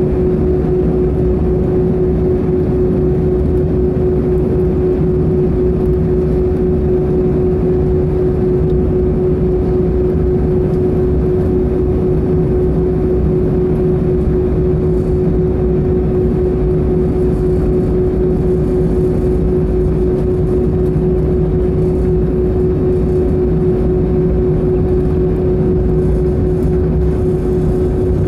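Airbus A320 cabin noise during taxi, heard from inside the cabin: the jet engines at idle give a steady humming tone over a low rumble and hiss.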